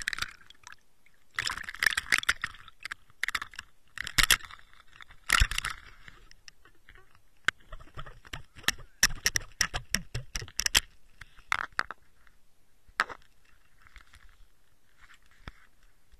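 Water splashing and sloshing in several bursts as a trout thrashes at the surface beside an underwater camera, then a run of sharp clicks and knocks, with a few lone clicks and faint rustles near the end.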